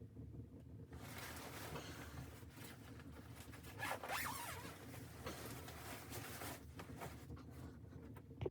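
A zipper being pulled open or shut in long scratchy runs, starting about a second in and lasting several seconds.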